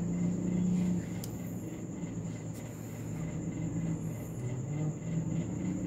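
A low, steady engine hum, its pitch stepping slightly about a second in and again past four seconds, with crickets chirring steadily at a high pitch over it.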